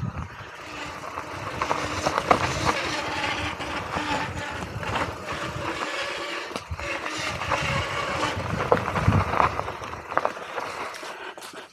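Mountain bike rolling fast down a dirt singletrack: tyres running over packed dirt and leaves, with frequent sharp knocks and rattles as the bike hits bumps and roots.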